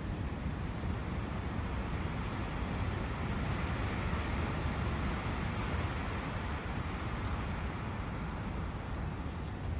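Brook water running in a forest: a steady, even rush of flowing water.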